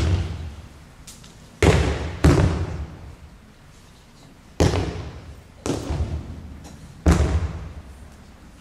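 Aikido breakfalls: a partner's body and slapping arm landing on tatami mats, six sharp thuds that echo in a large hall, two of them in quick succession about two seconds in.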